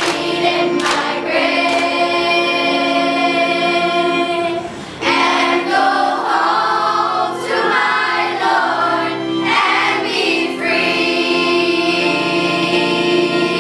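Choir singing a slow song with long held notes; the sound dips briefly about five seconds in.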